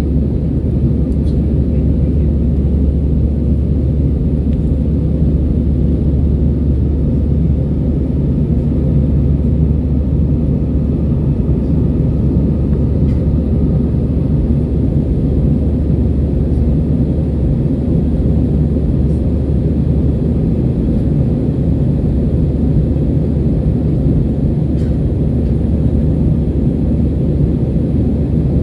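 Airbus A320 cabin noise heard from inside the cabin: a steady low rumble of the jet engines and airflow, unchanging throughout.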